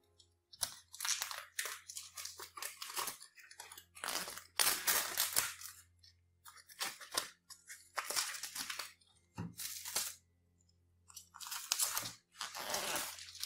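Clear plastic shrink-wrap being torn and peeled off a book slipcase. It comes as a run of crinkling, crackling rustles, each up to about a second long, with short pauses between them.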